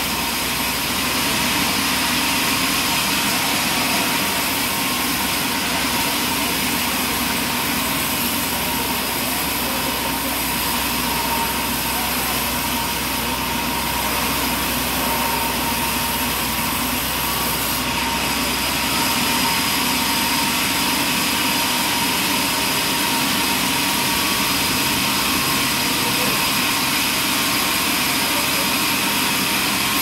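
Large vertical band sawmill running steadily with a high whine, its blade sawing through a log as it is pushed along the table. A low hum under it drops away about two-thirds of the way through.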